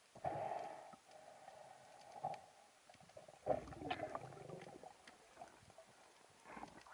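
Muffled underwater sound through a camera housing. About three and a half seconds in comes a sharp knock and a short run of clicks, as a wooden band-powered speargun fires its shaft. An earlier rustle of movement against the gun comes about a third of a second in.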